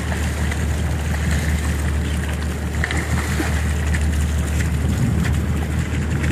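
Boat engine running steadily at low speed, a constant low drone.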